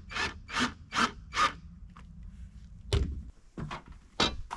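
Wood being sawn by hand: about four even rasping strokes that stop about a second and a half in, followed by a few knocks of wood on wood.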